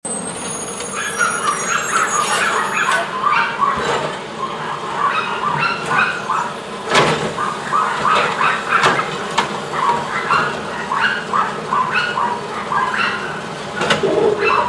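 Side-loading garbage truck's automated arm tipping a polybin, with a sharp clank about seven seconds in and another near nine seconds as the bin is dumped over the hopper. Short high squeals or yips repeat two or three times a second throughout.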